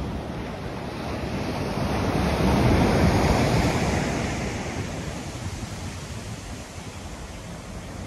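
Ocean waves breaking and washing up a sandy beach at high tide. The surf swells to a peak about three seconds in, then fades as the water spreads and draws back.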